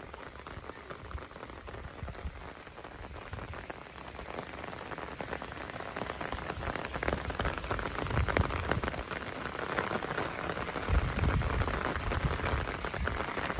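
Heavy rain falling, a dense patter of drops hitting a surface, slowly growing louder, with some low rumbling in the second half.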